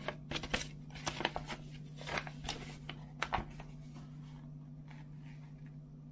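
A folded paper poster being unfolded and opened out by hand: quick crisp paper rustles and crackles through the first three and a half seconds, then only faint handling.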